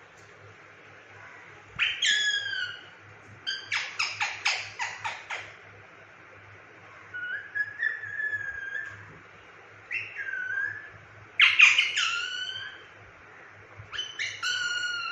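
Indian ringneck parrot calling and whistling: a string of separate sliding calls, one a quick run of about eight short notes and another a longer drawn-out whistle, the loudest call coming about three-quarters of the way through.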